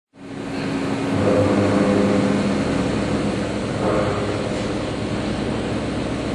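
Walter BLAXX indexable shoulder milling cutter cutting steel: a loud, steady machining noise with humming tooth-pass tones, starting suddenly just after the start.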